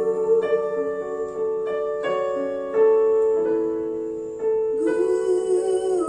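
Music: a keyboard or piano playing a slow run of sustained notes and chords, with a wavering held note joining about five seconds in.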